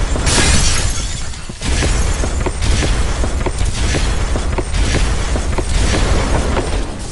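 Countdown-intro sound effects: a glass-shattering crash with a deep boom about once a second, over a steady low rumble.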